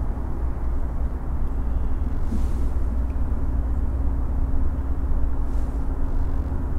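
Steady low rumble of road traffic, with a low steady hum joining about two seconds in.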